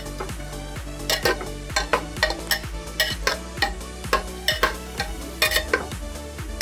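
Metal spatula scraping and clinking irregularly against the inside of a pressure cooker as thick chana-and-potato curry is stirred, mixing in freshly added garam masala.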